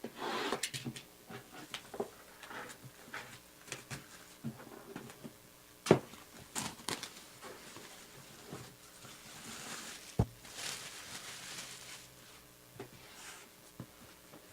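Packaging being handled and opened by hand: scattered clicks and knocks with rustling in between. The sharpest click comes about six seconds in and a low thump about ten seconds in, with a longer stretch of rustling around then.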